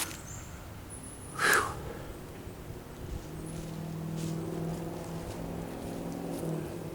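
A brief loud rustle about a second and a half in, then a steady low engine hum from a passing motor vehicle that sets in about three seconds in and fades near the end.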